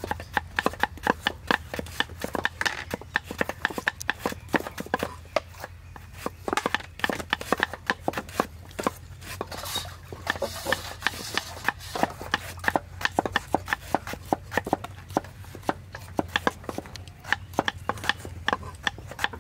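Kitchen knife slicing banana flower on a thick wooden chopping board: quick, regular knocks of the blade on the wood, several a second, over a steady low hum.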